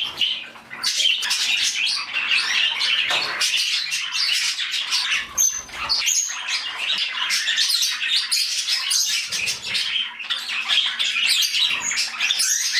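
A flock of budgies and cockatiels chattering, chirping and squawking together without a break, many birds calling over each other.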